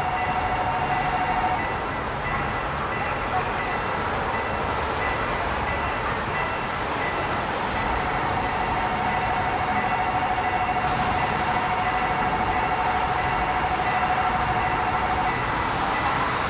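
A train running through a level crossing, heard as a steady rumble, with the crossing's electronic warning signal sounding as a steady tone. The tone breaks off about a second and a half in, resumes about eight seconds in, and stops shortly before the end.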